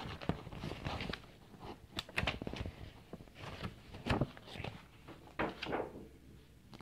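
Paper calendar pages being handled and turned: a run of short rustles, flaps and taps, several a second, with a few longer rustles.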